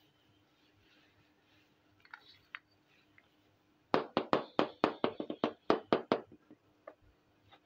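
Hard plastic miniature toy kitchen pieces being handled and set down: a few light taps, then a quick run of about a dozen sharp clicks and knocks over a little more than two seconds.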